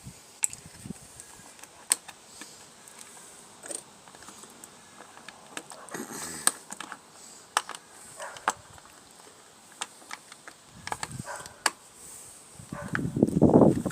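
Scattered clicks, taps and small rattles of tools and parts being handled during repair work, with a louder burst of low knocking and handling noise near the end.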